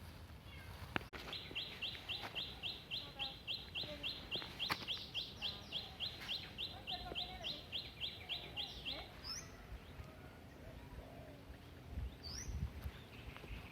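A bird chirping in a rapid, even series of short high chirps, about three or four a second, for several seconds, followed by a couple of single higher notes.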